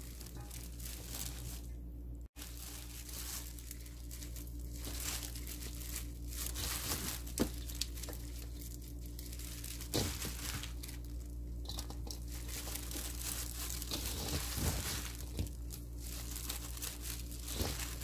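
Plastic-gloved hands tossing and kneading garlic chives with sliced onion and chili-flake seasoning in a stainless steel bowl. The disposable gloves crinkle and the wet, seasoned leaves rustle and squish in repeated strokes, with short pauses between them and an occasional tap on the bowl.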